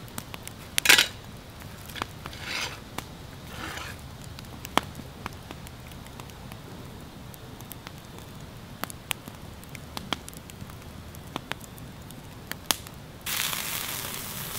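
Wood campfire crackling with scattered sharp pops, and a few brief rustling scrapes in the first few seconds. Near the end a steady frying sizzle starts suddenly: burger starting to cook in the pan over the fire.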